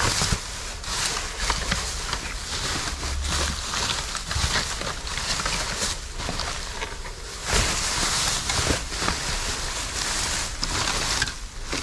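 Rustling and knocking of trash bags, cardboard and discarded items being handled in a dumpster, in many short irregular bursts, with wind rumbling on the microphone.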